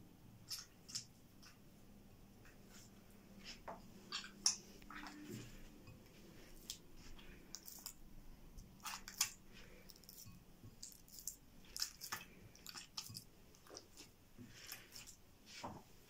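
Hands kneading wet, homemade salt-dough play dough made sticky with spinach juice in a glass bowl: faint, irregular short clicks and smacks of the dough, loudest about four and a half and nine seconds in.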